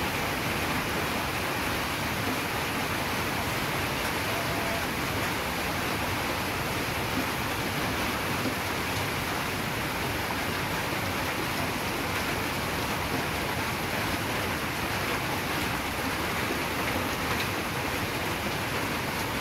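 Heavy rain falling on dense foliage and leaves, a steady even hiss of rain.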